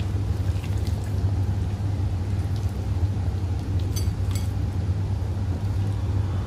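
A pot of curry bubbling at the boil over a steady low hum. About four seconds in there are two short sharp sounds as masala-coated chicken pieces are dropped into the curry.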